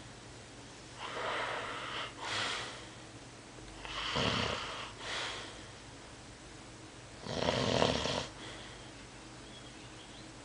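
Slow, rhythmic snoring: three noisy snoring breaths about three seconds apart. The first two are each followed by a shorter breath, and the last is the longest and loudest.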